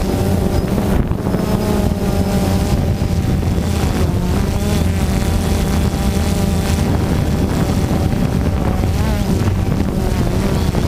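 DJI Phantom 2 quadcopter's four electric motors and propellers buzzing in flight, heard up close from the camera slung beneath it. The pitch wavers as the motors adjust their speed, with wind noise on the microphone.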